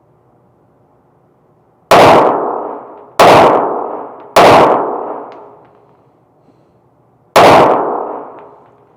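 Four pistol shots, three in quick succession and a fourth after a pause of about three seconds, each ringing out with a long echo inside an indoor range.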